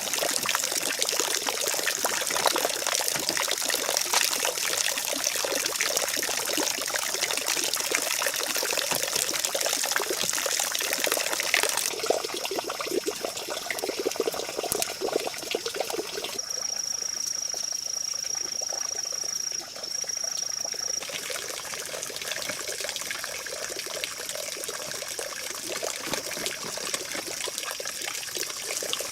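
Water trickling and running steadily, with scattered light clicks through it. For about five seconds past the middle, a steady high-pitched tone sounds over the water, breaking off briefly once.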